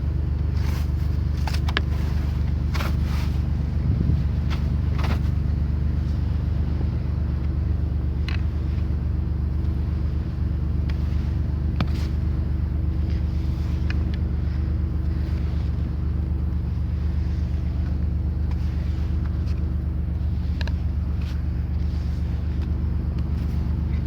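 Car engine idling steadily, with scattered short scrapes and taps of snow being cleared off the car.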